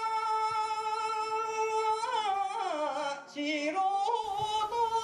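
A single voice singing a slow, drawn-out chant: one long held note, then a wavering, ornamented line that falls in steps and rises again near the end.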